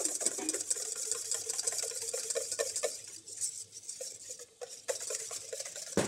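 Wire whisk beating thickened egg yolks for hollandaise in a stainless steel bowl: rapid clicking and scraping of the wires against the steel, thinning to sparser clicks about halfway through.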